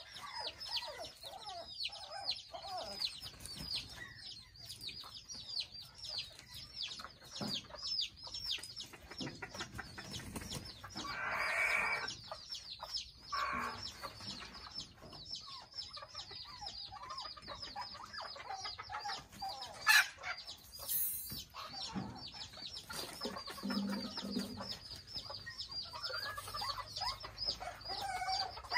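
Mini Thai bantam chickens clucking and calling, over a fast, steady run of high peeping. A louder call comes about eleven seconds in, and a single sharp tap about twenty seconds in.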